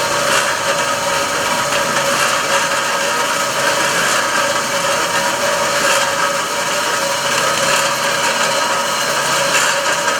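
Radio-controlled scale construction models at work: a steady whine of small electric motors and gearboxes mixed with continuous rough scraping and grinding.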